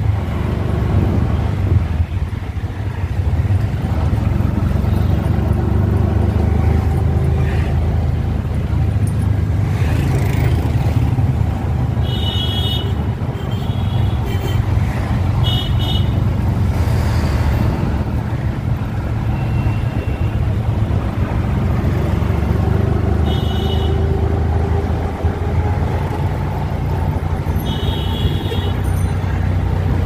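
Busy street traffic: a steady low engine drone with several short, high-pitched horn toots scattered through.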